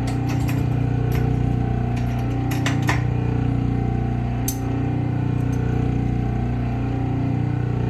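Clipper blade sharpening machine running: a steady electric motor hum from the spinning charged plate, with scattered light clicks and ticks as a 3 3/4 clipper blade is ground on it.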